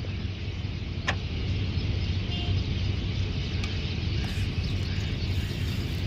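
A steady low mechanical hum, with a single light click about a second in.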